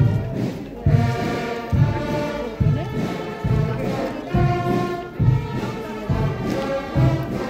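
Brass band music with held notes over a slow, steady beat, a little more than one beat a second.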